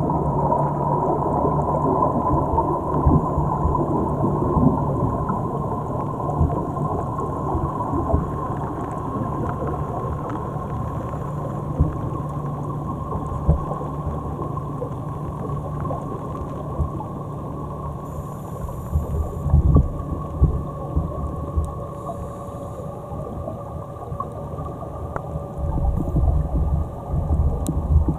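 Muffled underwater noise heard through an action camera's waterproof housing: a steady low rumble with a faint steady tone, scattered short knocks, and louder rushes near the end.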